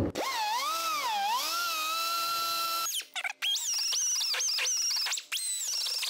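Die grinder with a burr cutting the steel plate of a rubber transmission mount to lengthen its bolt slot. Its whine sags and recovers in pitch as the burr bites, holds steady, then stops briefly about three seconds in. It comes back higher-pitched with repeated sharp dips and recoveries as the cut goes on.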